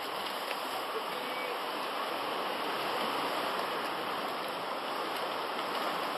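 Steady wash of sea waves on a rocky shore: an even hiss of water with no separate splashes standing out.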